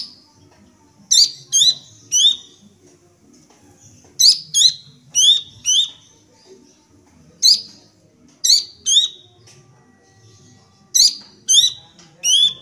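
Young pelanduk semak babbler (cingcoho) calling: about a dozen short, sharp, high calls, mostly in quick pairs and threes with pauses between.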